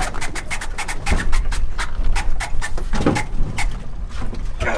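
Men panting and straining as they haul a heavy hand line against a large goliath grouper, with a stronger grunt-like burst about three seconds in. Wind rumbles on the microphone throughout.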